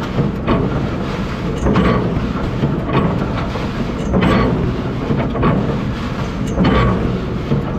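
A sixty-year-old square baler running under tractor power after years of sitting: a steady rumble with a loud, regular clank about every second and a quarter as its plunger strokes.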